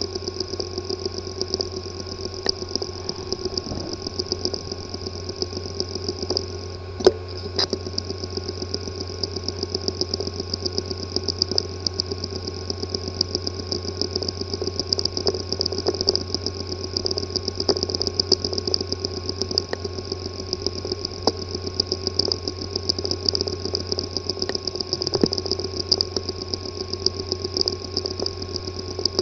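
Hard drive with a physically damaged disk assembly, running with a steady hum and whine under rapid, repeated ticking, with one sharper click about seven seconds in. The clicking and buzzing are the sign of damage inside the sealed head-and-platter assembly.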